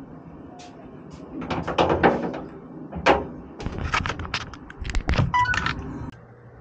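A run of irregular knocks and clatters, with a short squeak about five seconds in, that stops suddenly about six seconds in.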